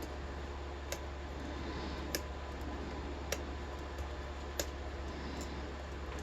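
Sharp clicks from a pick working the pin tumblers of a Maxus rim cylinder during single-pin picking, five in all about a second apart, shortly before the lock opens.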